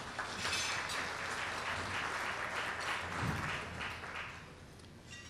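Audience applauding, a room full of light clapping that dies away about four seconds in.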